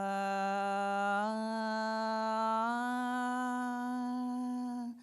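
A single voice singing one long held note of a devotional prayer chant, stepping up slightly in pitch twice, about a second in and around the middle, then breaking off near the end.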